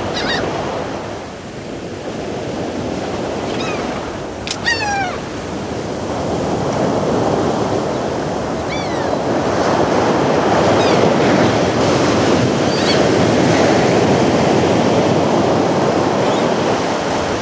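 Sea surf breaking on rocks: a steady wash that grows louder in the second half. A handful of short gull cries fall in pitch over it, the clearest about four seconds in.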